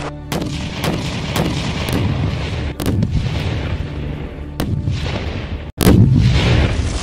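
Battle sounds: a series of gunshots, roughly one every half second at first and then more spaced out, followed near the end by a heavy shell explosion that rumbles on.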